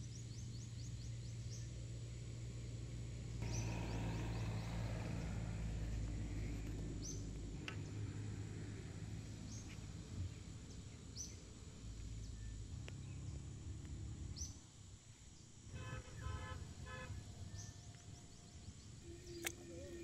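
Outdoor pond-side ambience: a steady low rumble with a short high bird chirp repeating every second or two.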